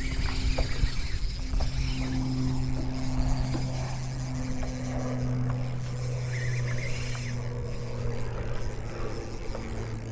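A boat motor runs with a steady low drone throughout, shifting slightly in pitch about a second and a half in, with faint scattered ticks over it.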